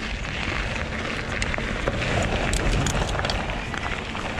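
Mountain bike ridden fast along a dirt trail: a steady rush of wind rumbling on the microphone with rolling tyre noise and a few sharp clicks.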